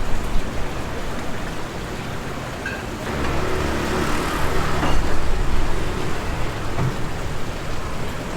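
Road traffic noise, with a vehicle's engine growing louder and then fading between about three and six seconds in.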